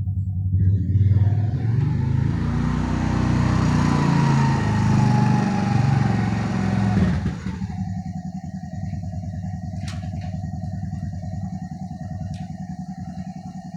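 Honda Recon ES 250 ATV engine running: it comes up louder and revs for about six seconds, then drops sharply back to a steady, quieter running with a faint whine and a couple of light clicks.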